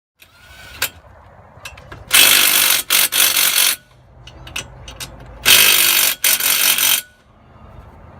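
Ratchet wrench being worked on a bolt: two long runs of rapid clicking, each about a second and a half, with a few lighter metal clicks and clanks between.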